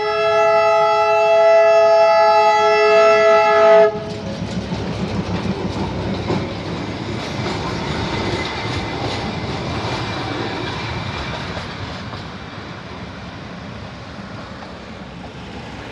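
Darjeeling Himalayan Railway narrow-gauge diesel locomotive sounding a long, steady horn that cuts off sharply about four seconds in. The locomotive and its two coaches then rumble and clatter past on the track, fading as they move away.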